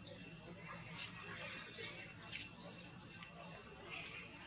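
A small bird giving short, high, rising chirps, about six in a row spaced half a second to a second apart, over a faint low hum.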